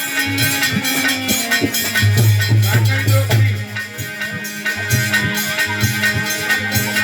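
Instrumental folk music between sung verses: a held low drone and a higher melody over quick, even drum strokes.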